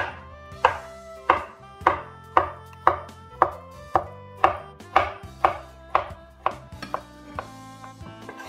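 A kitchen knife chopping boiled carrots into pieces, in steady strokes about two a second that grow softer near the end.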